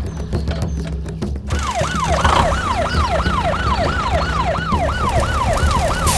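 A siren starts about a second and a half in, sweeping quickly up and down in pitch about two to three times a second, over steady background music.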